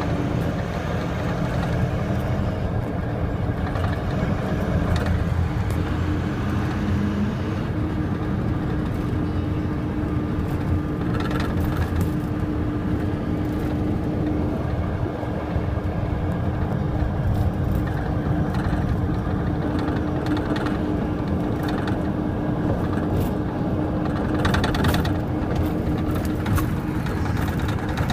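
Steady road and engine rumble inside the cab of a moving International truck, with a faint steady hum for most of the stretch.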